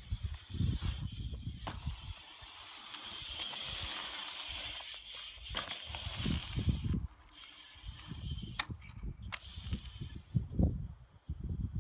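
BMX bike tyres rolling over rough concrete, a low uneven rumble with a stretch of hiss in the middle, broken by a few sharp clicks and knocks from the bike.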